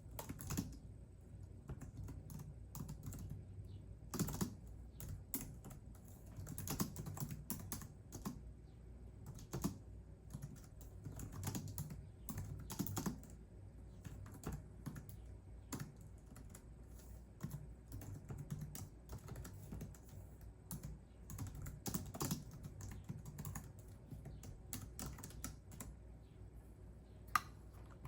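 Computer keyboard typing: irregular runs of keystroke clicks with short pauses between bursts.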